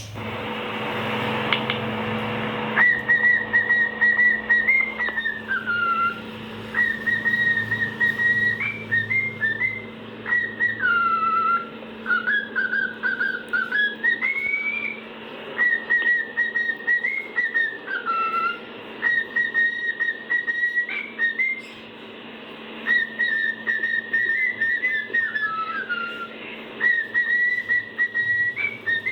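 Cockatiel whistling a learned tune: repeated phrases of held high notes that slide down at the end of each phrase, with short chirps between them, over a steady low hum.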